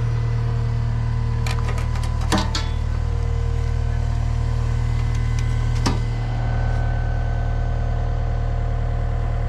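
Diesel engine idling steadily, with a few light clicks and knocks about two seconds in and one more near six seconds.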